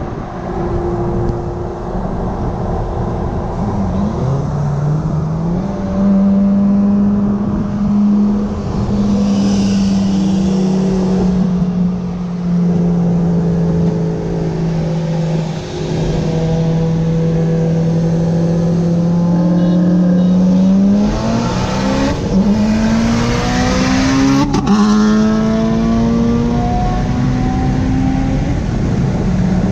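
Audi RS7 Performance's twin-turbo V8 heard from inside the cabin over road rumble: a steady drone at cruise, then about two-thirds through it accelerates hard, its pitch climbing in steps through the gear changes.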